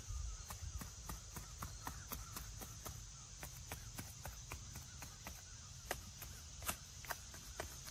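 Gloved hands working at the edge of a flat headstone: quick irregular clicks and scrapes, about three or four a second, with a few louder ones near the end, over a steady high drone of insects.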